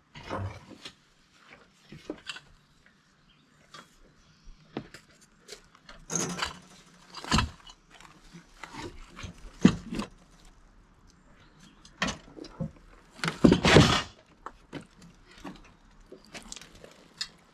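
Intermittent clanks, knocks and scraping from the steel frame of a Rima RS31G sawmill sawhead being handled and tipped upright, mixed with plastic wrap crinkling. The loudest is a short noisy burst a few seconds before the end.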